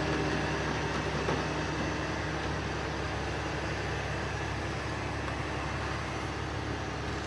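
Heavy tow truck's engine running steadily nearby: a low, even drone with no change in pitch.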